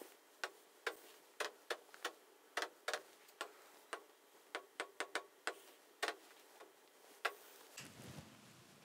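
A pen tapping on the glass of a large touchscreen display: a string of light, irregular clicks, about two a second.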